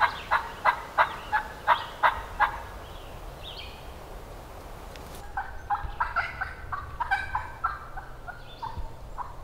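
Wild turkeys calling: a loud run of quick repeated notes, about three a second, that dies away over the first two and a half seconds, then after a lull a second, more ragged run of notes from about five seconds in. A small bird chirps once in the lull.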